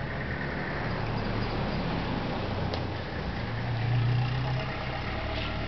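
A steady low motor hum over general workshop noise, swelling briefly about four seconds in.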